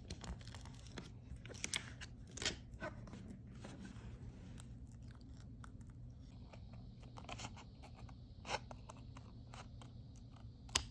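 Scattered soft crackles and rustles of plastic film and card being handled up close, as self-adhesive holographic film is peeled from its gridded backing sheet and a glossy photo card is turned over, with a low steady hum underneath.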